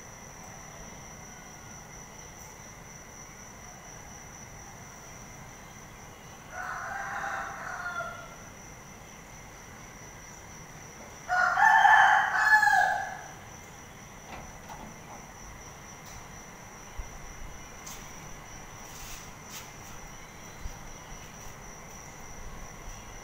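A rooster crowing twice, a fainter crow and then a louder, longer one a few seconds later, over a steady high insect drone.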